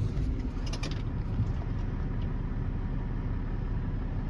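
Farm tractor engine running steadily with a low rumble, with a few brief rattles about half a second to a second in.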